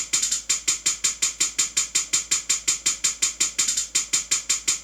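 Electronic hi-hat sample playing alone in a fast, even run of short ticks, about seven a second: the second hi-hat part of a trap-style beat.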